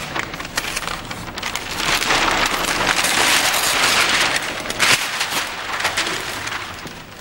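Brown paper covering being ripped and pulled away by hand, a dense crackle of tearing paper that swells in the middle, with one sharp rip about five seconds in.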